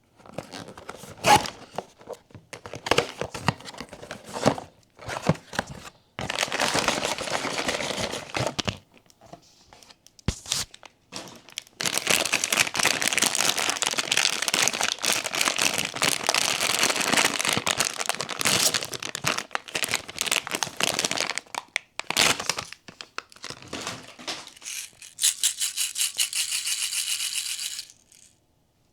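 Plastic blind-box packaging crinkling and tearing as it is handled and opened, in long spells of dense crackling broken by short gaps and separate clicks.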